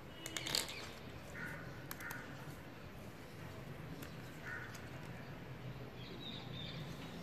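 A few short, faint caws of crows in the background, with crisp rustling and clicking of a stiff card sticker sheet being handled about half a second in.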